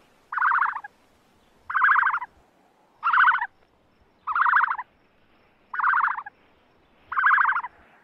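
An animal giving short, buzzy calls, six in a row, each about half a second long and spaced roughly 1.3 seconds apart.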